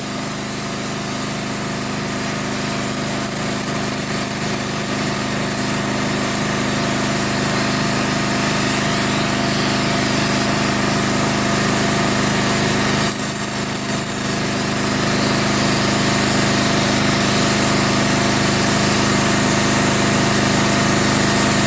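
DOFF superheated steam cleaner in use: a steady hiss of steam jetting from the lance nozzle against the render, over the steady hum of the machine unit running. The sound dips briefly a little past halfway through.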